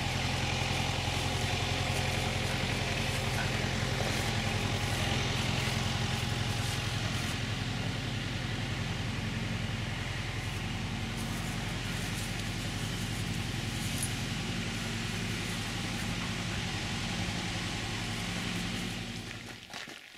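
Steady engine hum of an idling motor vehicle, running evenly with a layer of hiss over it. It cuts off suddenly near the end.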